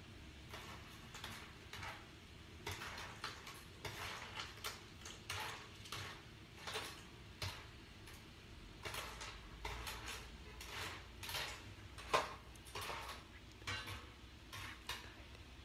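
A steel ladle stirring clams in their shells in a pan of boiling water: irregular scrapes and clinks of metal and shell against the pan, with one sharper knock about twelve seconds in.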